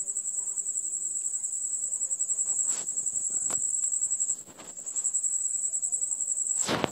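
A cricket chirping in a high, steady, rapidly pulsing trill that weakens briefly about halfway through.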